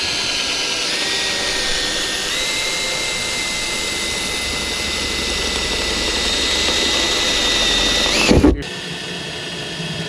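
Power drill running steadily while drilling a hole through the truck's sheet-metal cab roof for a cab light. Its whine steps up in pitch twice early on, rises briefly, then stops abruptly near the end.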